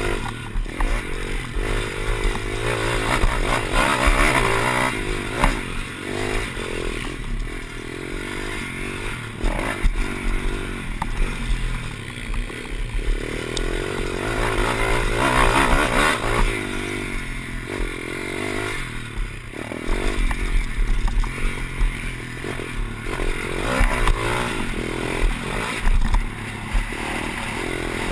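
Pit bike's small single-cylinder engine revving up and dropping back again and again as it is ridden hard on a dirt track, heard from a camera on the bike. Wind buffets the microphone, and knocks and rattles come through from the bumps.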